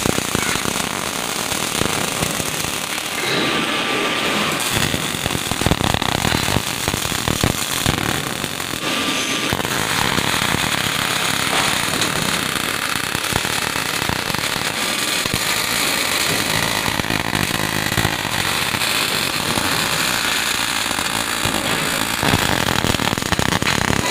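Robotic MIG welding arcs on a steel scaffold plank, with a steady, dense crackle and sputter of the welding arc.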